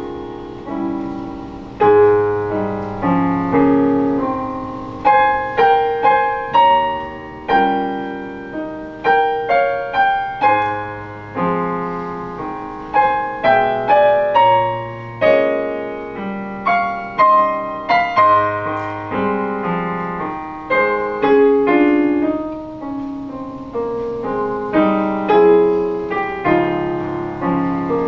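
Piano music: a slow piece of separate notes and chords, each struck and left to ring and fade.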